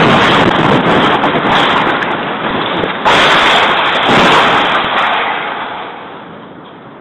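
A large overhead canopy structure collapsing onto a paved plaza: a sudden loud crashing roar that surges again about three seconds in, then slowly fades.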